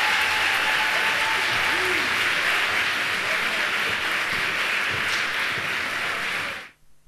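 Audience applauding steadily, then cutting off abruptly near the end.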